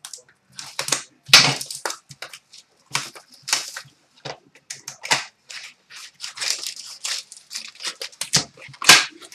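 Trading-card pack wrappers being torn open and crumpled by hand: a run of irregular crackling rips, the loudest about a second in.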